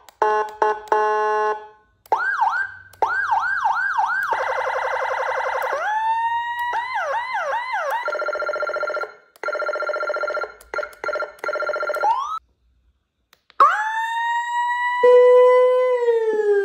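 CJB100-W069 electronic vehicle warning siren switching through its tone patterns: rapid up-and-down yelps, a buzzy horn-like tone, and pulsed steady tones. After a gap of about a second, a long rising wail holds, then starts to fall near the end.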